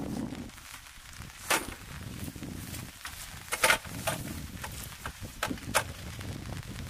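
Folding bench with a bamboo top and aluminium legs being unfolded and set down on grass: a few sharp clacks and knocks, the loudest group about halfway through, over a steady patter of rain on the tarp.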